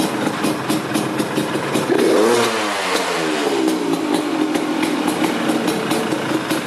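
Yamaha DT 180 two-stroke single-cylinder engine idling, revved once about two seconds in, then dropping back to idle.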